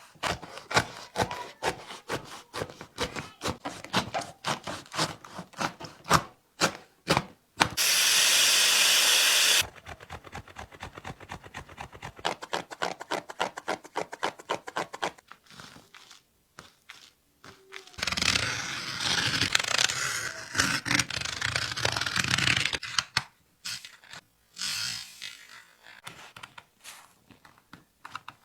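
Basketball shoe being cut and torn apart by hand: quick repeated scraping and cutting strokes through rubber, foam and fabric. A steady, even noise from a tool runs for about two seconds near the middle, and a louder rough tearing or scraping stretch comes later, with a few sharp clicks near the end.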